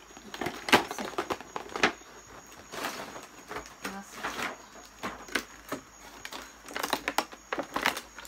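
Packaging of a makeup set being handled and opened: rustling with a run of sharp clicks, the loudest about a second and two seconds in, and a quick cluster near the end.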